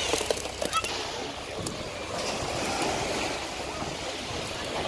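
Ocean surf washing onto the beach, a steady rushing noise, with a few sharp clicks in the first second.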